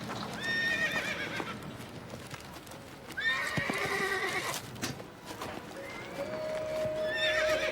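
Horses whinnying twice, the first call about half a second in and the second about three seconds in, with hooves clopping. A steady held tone comes in near the end.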